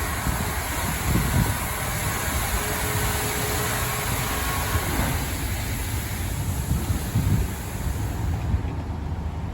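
LaserWash 4000 touchless car wash running: a loud hissing spray for about five seconds, then the hiss fades, leaving a steady low rumble of machinery.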